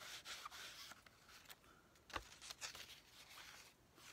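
Near silence in a small room, with a few faint rustles and light taps and one soft thump about two seconds in.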